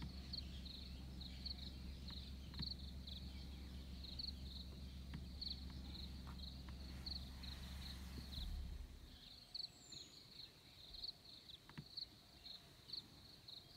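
Faint insect chirping outdoors: short high-pitched chirps in a steady rhythm, about two a second. Under it runs a low steady hum that stops about eight and a half seconds in.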